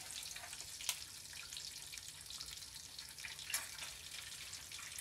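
Eggs frying in butter in a copper pan over a wood fire: a steady sizzling hiss full of small pops. Two sharp clicks stand out, about a second in and a louder one about three and a half seconds in.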